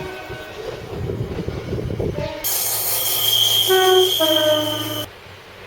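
Train horn sounding two tones, a higher note and then a lower one that cuts off suddenly, over the rumble and hiss of a running train with a steady high whine. The end of an earlier horn note fades out at the start.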